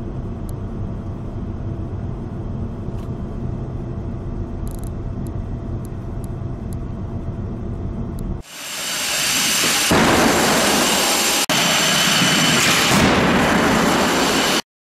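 Suzuki Swift's engine hum and road noise heard inside the cabin at about 60 km/h. About eight seconds in, this gives way to a much louder, dense rushing roar, building over a second and holding, during a full-width frontal crash test at 55 km/h, which cuts off abruptly near the end.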